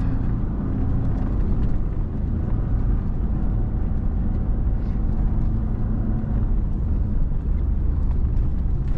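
A 2017 Ford Raptor's twin-turbo V6 and tyres heard from inside the cab while driving off-road: a steady, loud rumble that holds the same level throughout.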